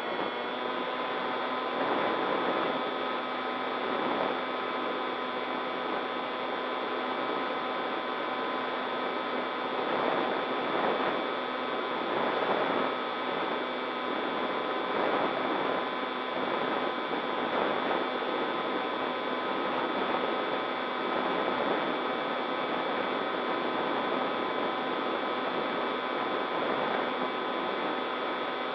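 Steady multi-tone whine of an RC model plane's motor, heard from the camera mounted on the plane, with rushing wind noise that swells and fades over it. The whine's pitch steps up slightly about half a second in.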